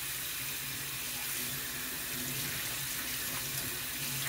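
Single-handle faucet running steadily into a sink.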